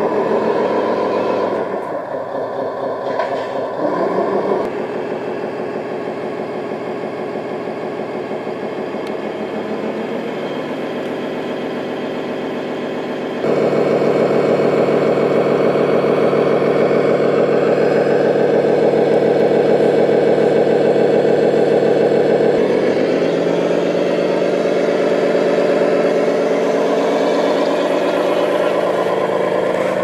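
Simulated diesel engine sound from the sound module of an RC Mercedes SK 2644 six-wheel tipper truck, running and revving as the truck drives through sand. It steps up suddenly to a louder, steadier drone about halfway through and eases back a few seconds before the end.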